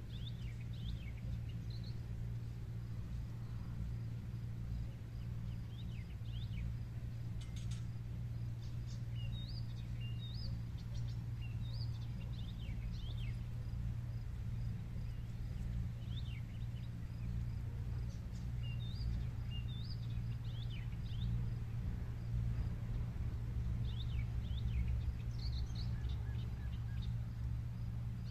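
Outdoor ambience: birds chirping in short scattered calls over a steady low hum.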